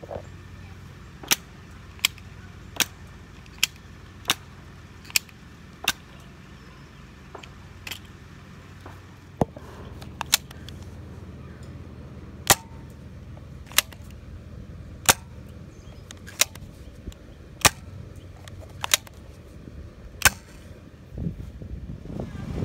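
A series of sharp pops at an even pace: about one every three-quarters of a second at first, then after a gap a slower run of about one every second and a third.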